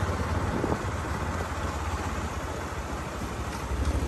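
Engine of a moving road vehicle running steadily, with wind noise on the microphone.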